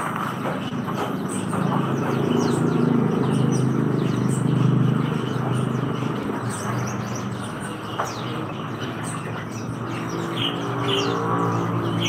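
Many caged songbirds chirping and twittering: a steady scatter of short, high, falling chirps from several birds at once. Underneath is a low steady rumble, strongest in the first half.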